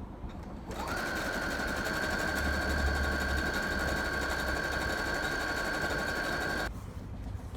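Electric sewing machine running at a steady speed, stitching a pocket onto skirt fabric. Its whine starts about a second in and stops about a second before the end.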